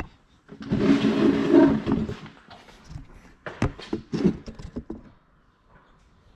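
Handling noise from a camera being picked up and moved: a loud rubbing rumble for about a second and a half, then several light clicks and knocks as it is set back in place.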